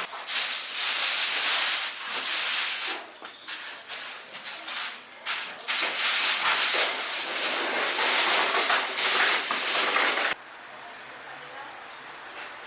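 Chicken deep-frying in a cauldron of hot oil, a loud sizzling hiss that swells and dips, then stops suddenly about ten seconds in.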